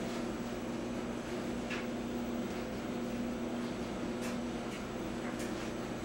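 Clothes dryer running with a steady hum, with a few faint ticks scattered through it.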